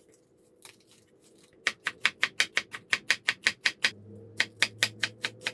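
Chef's knife shredding cabbage thinly on a wooden cutting board: quick, even strokes, about five a second, that begin about a second and a half in after a little quiet handling.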